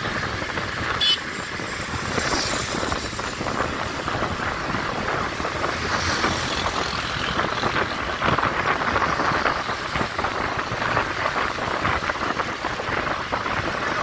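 Small motorcycle engines running at cruising speed, with road and wind noise rushing over the microphone while riding. There is a short sharp click about a second in.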